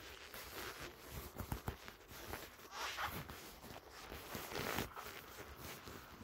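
Footsteps on a concrete floor against indistinct store background noise, with a few soft knocks.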